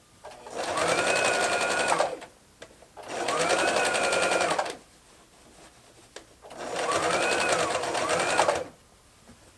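Modern plastic domestic electric sewing machine stitching in three short runs of about two seconds each. In each run the motor's whine rises as it speeds up, then holds until it stops. The machine is sewing normally now that the upper thread is correctly threaded and the top tension is right.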